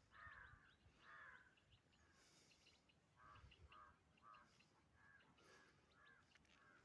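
Faint bird calls: two longer harsh calls at the start, then a quick run of short calls from about halfway through.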